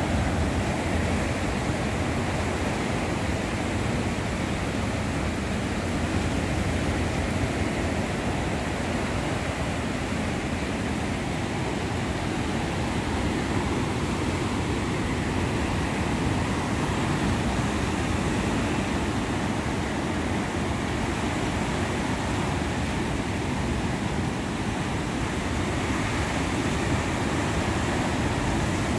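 Ocean surf breaking on a beach: a steady rush of rough waves and whitewash.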